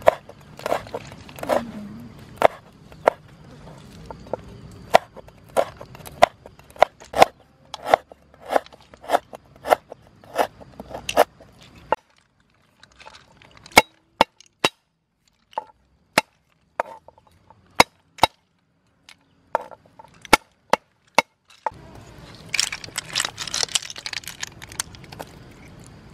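Cleaver chopping chillies and garlic on a wooden board: sharp knocks about twice a second for the first half, then sparser single chops. Near the end comes a few-second burst of rustling noise.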